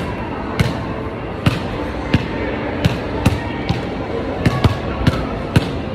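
Basketballs thudding against an arcade basketball machine's backboard, rim and ball-return ramp: about ten sharp knocks in quick, irregular succession, over steady background music.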